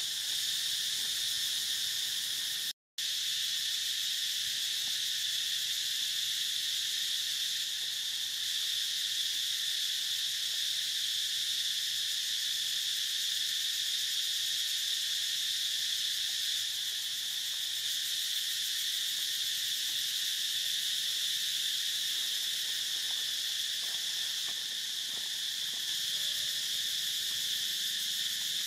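Steady, high-pitched chorus of insects buzzing without a break, cut by a moment of complete silence about three seconds in.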